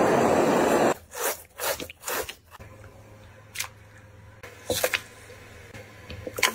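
Butane blowtorch flame running loud and steady as it singes the hair off an animal hide, cutting off suddenly about a second in. Then a few short scraping noises, a faint steady hum and a few light knocks.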